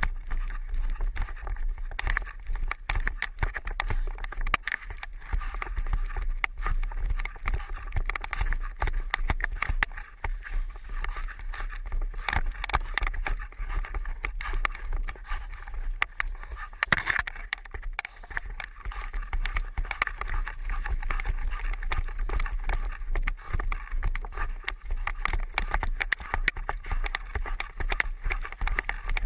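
Handling noise from a GoPro camera on a stick held in a running dog's mouth: constant clattering and knocking with a low rumble as the dog bites, shakes and carries it.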